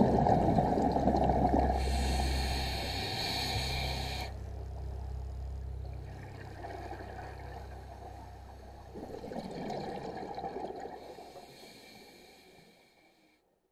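Scuba diver breathing through a regulator, recorded underwater: exhaled bubbles rumble at the start and again about two-thirds of the way through, with an inhalation hiss in between. The sound fades out near the end.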